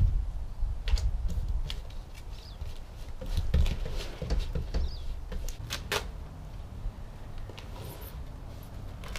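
White vinyl wrap sheet being pressed and smoothed by hand onto a plywood panel, giving scattered crackles, taps and rubbing, busiest in the middle, over a low rumble.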